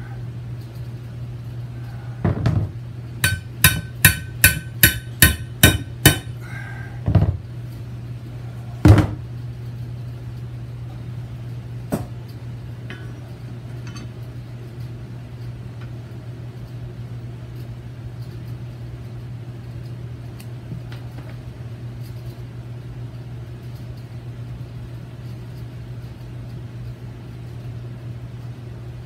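Hammer blows on a bent steel snow-plow bracket to beat it back straight, each strike ringing metallically: a quick run of about eight blows, then a few single heavier ones, about a dozen in all. A steady low hum runs beneath.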